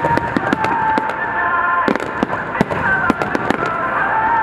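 Fireworks display with many aerial shells bursting in quick succession: a dense run of sharp bangs and crackle. Held high tones that shift pitch in steps run underneath the bursts.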